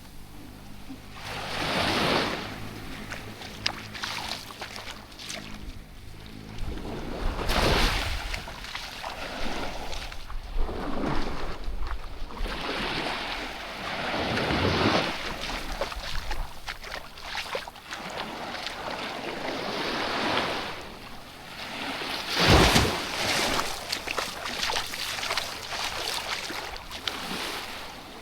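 Small waves washing onto a sandy beach, swelling and falling back every few seconds, with wind on the microphone. A low steady motor drone sits underneath in the first several seconds and again near the end.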